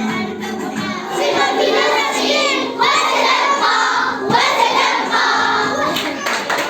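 A group of children singing and shouting together, many high voices overlapping, with music fading out in the first second.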